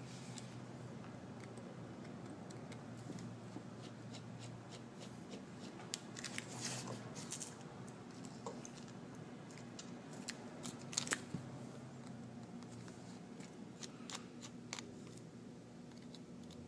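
Faint scattered clicks and short scrapes of a small screwdriver working tiny screws out of the metal plate on an iPhone 5 screen assembly, the sharpest clicks coming about two-thirds of the way through, over a low steady hum.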